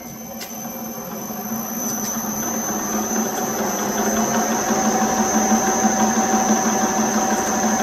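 Acraturn metal lathe running and turning the outside diameter of a brass workpiece with a tool bit: a steady machining hum and cutting noise with a thin high whine. It grows louder over the first few seconds and cuts off suddenly at the end.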